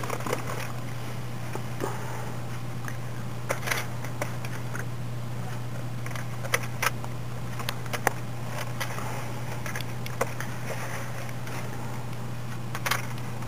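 Scattered light clicks and taps of fingers and a pick working yarn off the plastic needles of a circular knitting machine during casting off, over a steady low hum.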